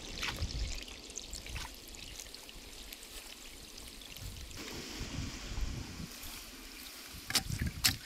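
Water trickling and pouring along a split-bamboo channel. Two sharp knocks near the end.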